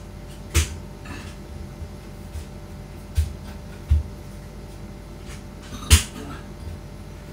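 Two sharp knocks, one within the first second and one about six seconds in, with a couple of dull low thumps between them.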